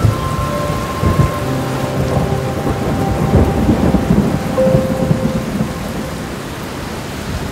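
Steady rain with a roll of thunder rumbling over it, opening with a sharp crack and swelling again a few seconds in before dying away.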